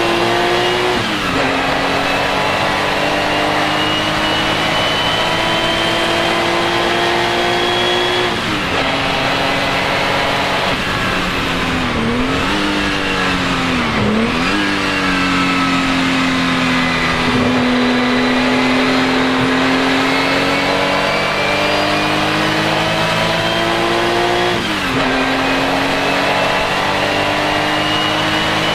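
Porsche 935 K3's turbocharged flat-six racing engine pulling hard on track, its pitch climbing slowly through each gear, with upshifts about a second in, around eight seconds, and near the end. In the middle comes a braking zone with quick downshifts that make the pitch dip and blip twice before it settles low and climbs again.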